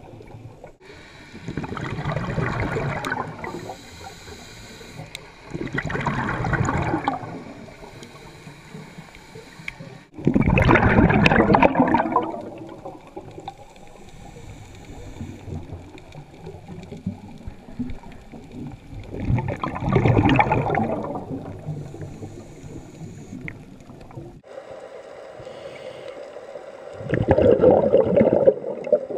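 Scuba diver breathing through a regulator, heard from underwater: five bubbly exhalations a few seconds apart, each lasting one to two seconds, with quieter stretches between them.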